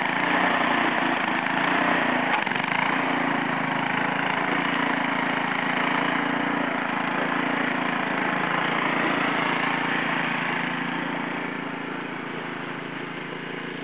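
Snowblower engine running steadily, growing quieter over the last few seconds.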